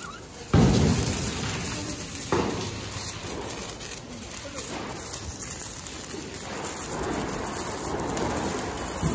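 Firecrackers going off: a loud deep bang about half a second in and a sharper crack about two seconds in, then a steady crackling hiss of fountain fireworks spraying sparks.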